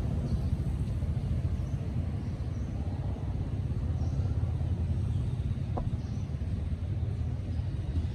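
Steady low rumble, with faint short high chirps scattered through it and a brief thin tone about six seconds in.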